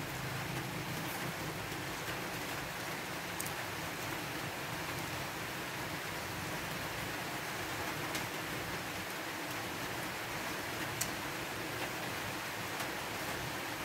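A steady, even hiss throughout, with a few faint sharp clicks of a spoon and fork against a plate.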